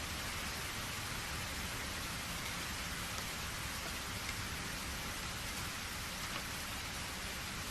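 Steady rain falling on surfaces, a continuous even hiss with faint individual drop ticks.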